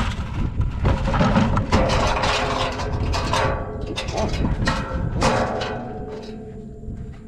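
Wire-mesh crab net being handled over a bucket holding metal crab tongs: a dense run of rattling, clattering and knocks that thins out over the last second or two.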